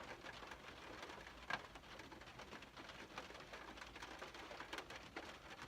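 Rain falling on a car's roof and windshield, heard from inside the car: a faint hiss with irregular drop taps, one louder tap about one and a half seconds in.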